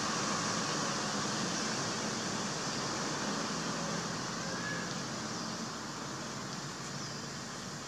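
Steady forest ambience: a continuous high hiss that slowly fades, with a faint short high note about halfway through.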